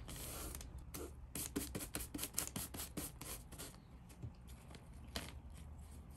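Paper towel crinkling and rustling as a hand presses and pats it down over a paint-covered fern leaf on newspaper to print it: a quick run of light taps and crinkles in the first half, thinning out later.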